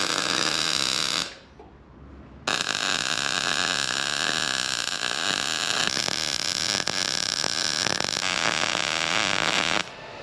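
Welding arc crackling steadily as hinges are welded onto a steel fuel tank. It breaks off for about a second early on, then runs again until it stops shortly before the end.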